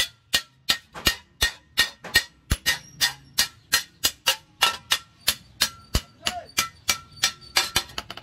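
Hand hammer striking a steel hand-plough blade on an anvil, a steady run of about three blows a second, each with a short metallic ring, hammering the blade straight and its edge thin.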